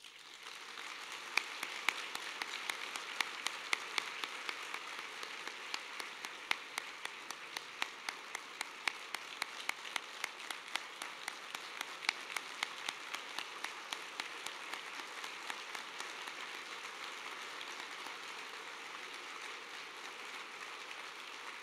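Audience applauding at length, many hands clapping in a dense patter that thins out slightly over the last several seconds.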